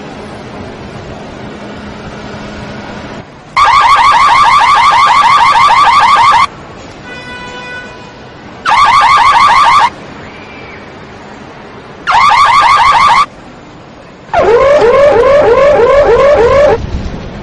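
Car alarm going off in four loud bursts, each a rapid run of repeating chirping tones with short gaps between. The last burst is a lower-pitched, whooping tone.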